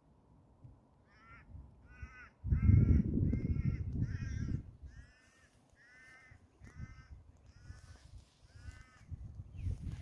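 A bird calling a long series of about a dozen short, evenly spaced calls. A louder low rumble runs under the calls from about two and a half to four and a half seconds in.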